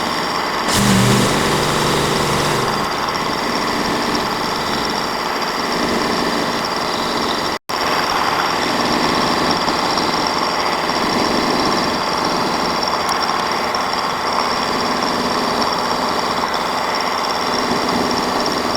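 Metal lathe running steadily while a cutting tool takes a pass along a taper, a steady motor whine with a hum that grows louder for a couple of seconds about a second in. The sound drops out for an instant about a third of the way through.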